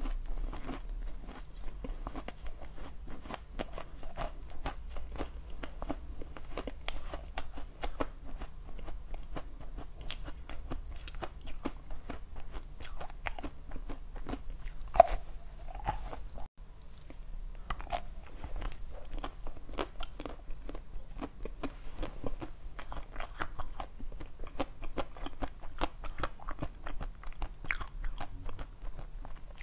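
Close-miked biting and chewing of crunchy coated sweets: a dense, steady run of crisp crunches and crackles, with a brief break about halfway through.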